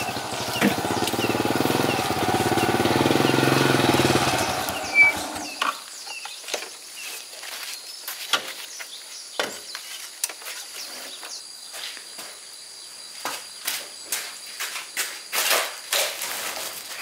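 An engine running for about five seconds, then dying away, followed by scattered light clicks and knocks.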